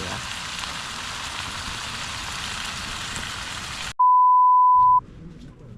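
A steady hiss cuts off abruptly about four seconds in. A loud, pure, steady beep follows for about a second, the kind of test-tone beep added in editing, and then a faint low hum.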